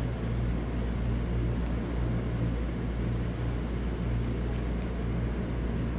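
A steady low hum and rumble of room noise, even throughout with no distinct events.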